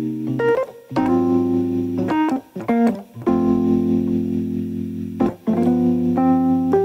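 Background music: sustained keyboard chords that change roughly once a second, with a few short breaks between them.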